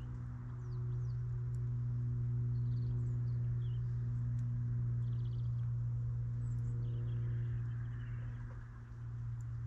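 Faint bird chirps and short calls over a steady low hum, with a few faint ticks.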